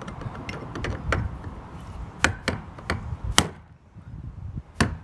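Hammer tapping a tool held against a fuel pump's metal retaining collar on a plastic fuel tank, driving the collar down and round to lock the new pump module in place. Light taps come first, then four sharper ones in quick succession, and one more near the end.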